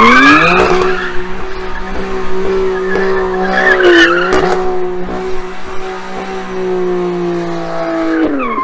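BMW M3 Competition's twin-turbo straight-six held at high revs while the car spins a donut, its rear tyres squealing and smoking. The revs rise at the start, dip briefly about four seconds in, and drop just before the end.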